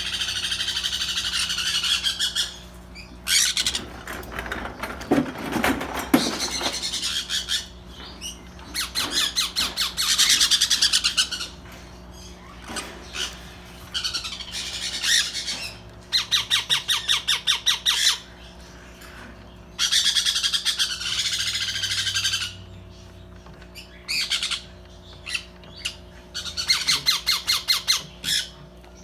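Young parrots squawking: harsh, raspy calls, some held for a second or two and some in quick runs of short squawks, repeated throughout with brief pauses.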